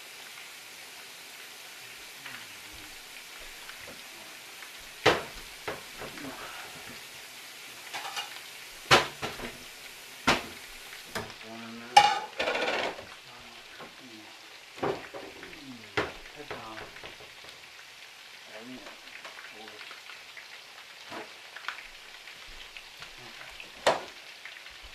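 Kitchen work: sharp clinks and knocks of utensils against pans and dishes, about seven standing out, over a steady hiss that stops suddenly about eleven seconds in.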